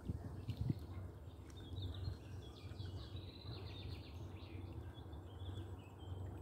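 Quiet outdoor ambience: a steady low rumble with a run of short high chirps for a few seconds in the middle.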